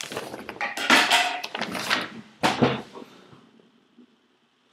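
Rustling and knocking of a person moving about at a desk and getting up from it, loudest about a second in and again near the middle, then fading to quiet.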